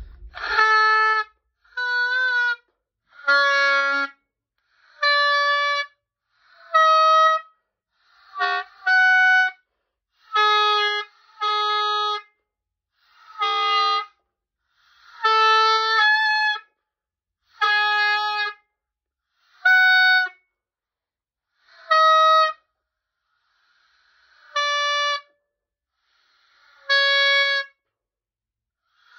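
Oboe playing an A major scale over two octaves, one detached note about every second and a half, each held for about a second with short silent gaps between.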